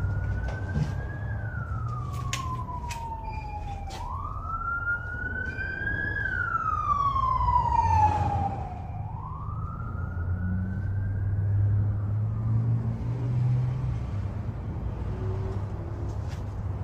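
A siren wailing, its tone rising and falling in slow sweeps about every four seconds, then fading out about two-thirds of the way through, over a steady low rumble.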